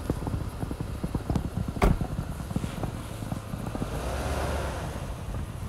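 Truck rolling slowly down an icy, snow-covered driveway, its tyres crackling and crunching over snow and ice over a low steady engine rumble, with wind on the microphone. One sharp knock about two seconds in.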